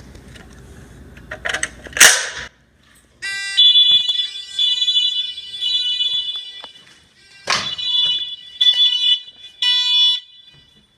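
Fire alarm horns sounding the three-pulse evacuation pattern: three shrill blasts, a pause, then three more, starting about three seconds in once the system is tripped. Just before they start there is a brief loud burst of noise.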